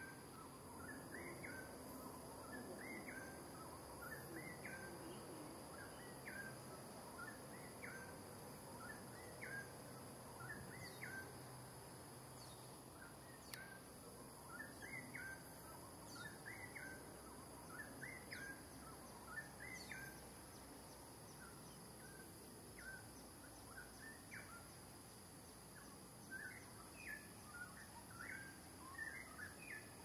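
Faint outdoor ambience: short, high, upward-hooked chirps repeat about once or twice a second, with brief pauses, over a steady high insect hum.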